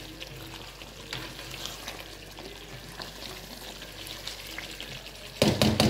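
Chicken karahi masala sizzling and spitting in the karahi over a high flame, stirred with a silicone spatula during the bhunai, the frying-down stage after the water has dried off. Near the end comes a burst of loud knocks and scrapes.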